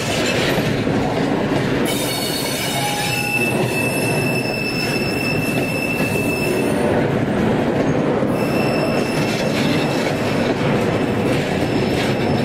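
1:29-scale model freight cars rolling past on track with a steady rumble of wheels. A thin, high-pitched wheel squeal comes in about two seconds in, drops out briefly around the middle, and returns for most of the rest.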